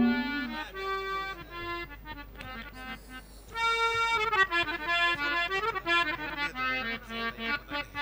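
Harmonium playing a melodic instrumental passage of held notes, growing louder about three and a half seconds in.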